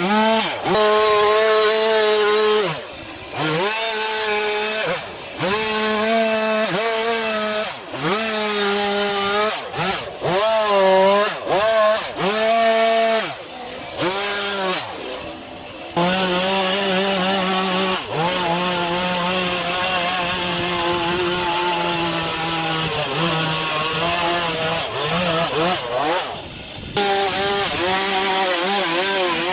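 Two-stroke chainsaw carving wood, its engine revving up and dropping back every couple of seconds as the throttle is opened and eased off. It holds a longer steady cut of about ten seconds past the middle.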